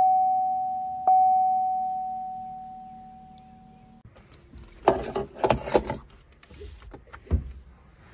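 Chevrolet Volt's dashboard chime: a single-tone ding repeating about once a second, struck twice and the last one ringing out over a few seconds. About five seconds in comes a brief rattling clatter, like keys or handling, then a thump.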